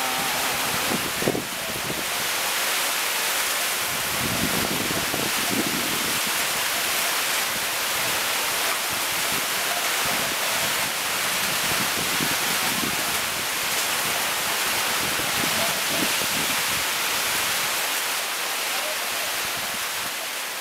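Heavy rain pouring steadily: a dense, even hiss with no breaks.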